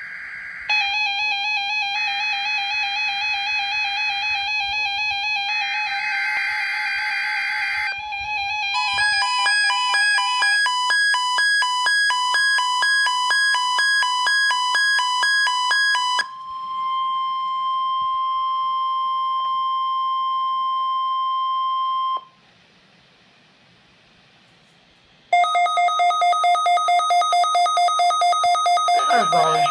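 Electronic Emergency Alert System weekly-test tones. First a run of warbling and rapidly pulsing electronic beeps, then a steady single-pitch tone lasting about six seconds: the NOAA Weather Radio warning alarm. After a pause of about three seconds, rapid pulsing two-pitch beeps sound near the end.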